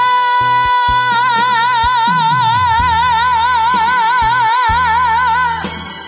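A boy's singing voice holds the long final note of a trot song: steady at first, then with a wide, even vibrato from about a second in, stopping shortly before the end. Under it the trot band's backing plays on, with drum hits.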